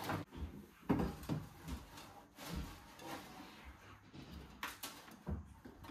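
Plant pots being set down and shifted on the floor of a glass-and-metal plant cabinet: a series of light knocks, clunks and short scrapes.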